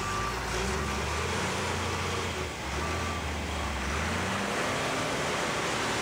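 Backhoe loader's diesel engine running under load as it works its front bucket in dirt, the engine pitch shifting a few times, with a couple of short beeps about a second and three seconds in.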